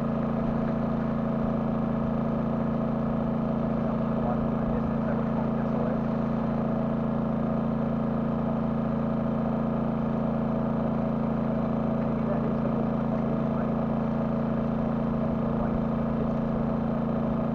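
An engine running steadily at one speed: a low, even hum with no change in pitch or level.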